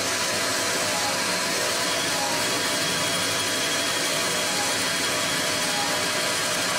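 Tormach 15L Slant Pro CNC lathe running steadily with its spindle turning a small titanium bar while the turning tool is jogged in to face the end. A faint high steady tone joins about two seconds in.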